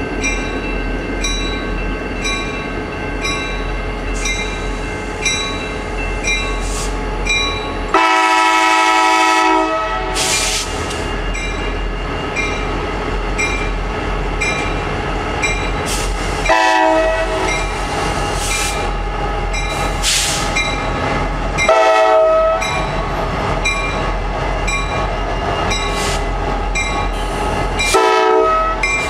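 Norfolk Southern diesel locomotives on a ballast train passing close by and sounding the horn: one long blast about eight seconds in, then three shorter blasts spread over the rest, over the steady rumble of the engines. A bell dings about twice a second throughout.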